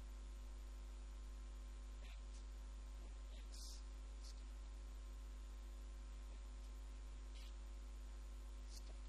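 Low, steady electrical mains hum with a few faint, scattered clicks.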